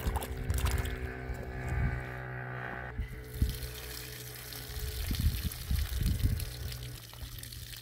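Water pouring and trickling, with a few dull low knocks about five to six seconds in.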